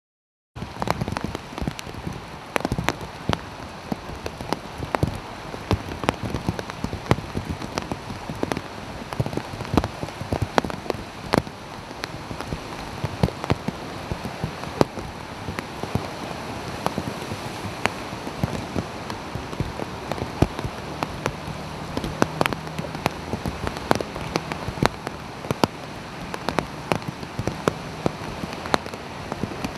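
Steady rain pattering, with many sharp drop ticks close by. A faint low vehicle engine hum comes in about two-thirds of the way through as traffic wades through the flooded street.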